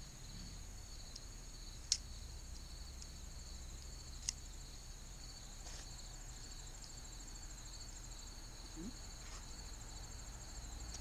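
Insects chirping in a steady high trill with a pulsing upper note, and two sharp clicks, about two and four seconds in.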